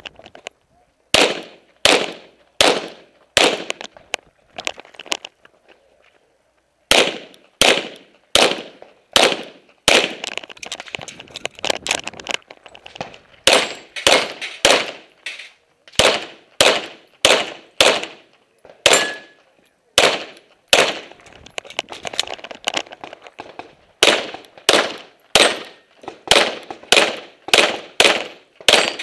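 Rapid semi-automatic pistol fire through a timed practical-shooting stage: dozens of shots, mostly in quick pairs, with a pause of about a second and a half about six seconds in.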